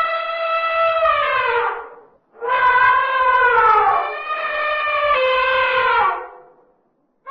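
Elephant trumpeting: two long calls. The first falls in pitch and fades about two seconds in. The second is longer, drops in pitch partway through and fades out near the end.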